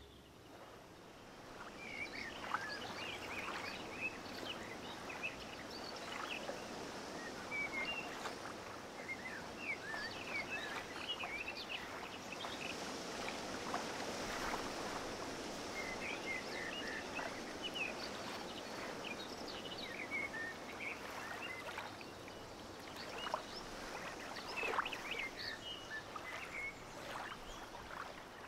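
Steady rush of river water running over a low weir, with birds chirping on and off throughout.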